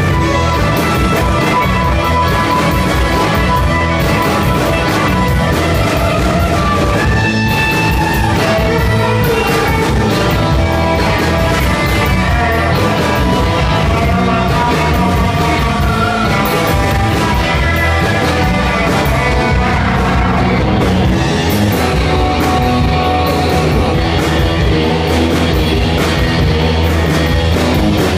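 Live rock band playing through a club PA: electric guitars over a steady drum beat.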